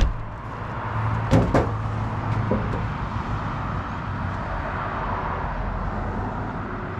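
A car door shutting with a sharp slam, followed about a second later by two quick knocks, over a steady outdoor rumble. The door is the driver's door of a 2006 Jeep Commander, closed to check the freshly sealed molding.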